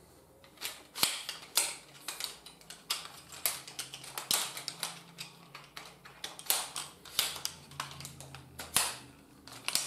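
Metal tube sections of a Hobbi Outdoor folding camping cot's leg assembly clicking and clattering as they are unfolded and fitted together by hand, in irregular sharp knocks.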